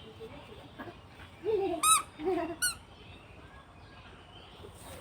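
Two short, high-pitched squeaks about two seconds in, less than a second apart, each just after a lower, bending whine.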